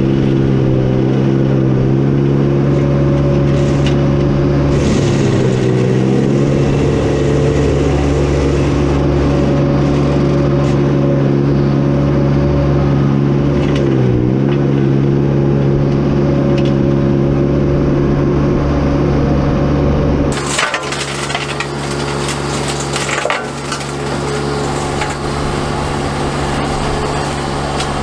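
Tracked mini skid steer's engine running steadily while driving an FMM148 flail mower, its pitch dipping briefly under load twice. About two-thirds of the way in, the flail bites into brush and woody material, adding dense crackling and splintering cracks over the engine.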